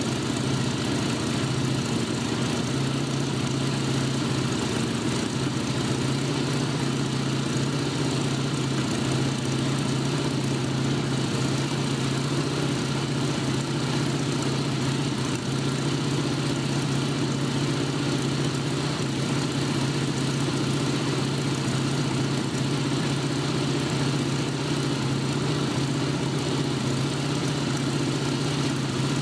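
Small radial aircraft engine with a propeller, running steadily at idle with a deep, even hum that never revs up.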